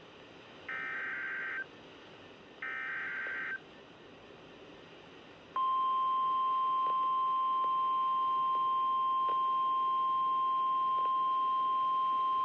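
Emergency Alert System SAME header data bursts: two short, screechy, warbling data tones about a second long, about a second apart. After a gap of about two seconds comes the steady NOAA Weather Radio 1050 Hz warning alarm tone, which starts sharply about five and a half seconds in and holds as one loud, unbroken whistle-like tone, signalling that a warning message follows.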